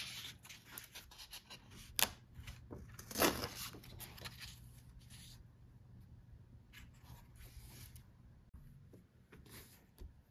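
Paper handling on a lined notepad: rustles and light taps, with a sharp tap about two seconds in and a longer ripping swish a second later as a written sheet is torn off the pad.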